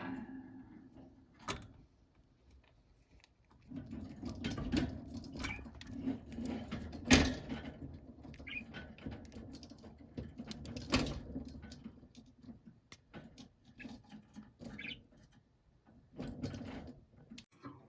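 Budgerigars moving about their cage: scratching, rustling and light clicking, with two sharper knocks about seven and eleven seconds in.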